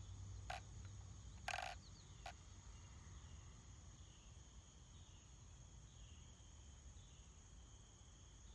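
Near silence: faint outdoor dusk ambience with a steady high-pitched insect drone. Three short sharp chirps come in the first two and a half seconds.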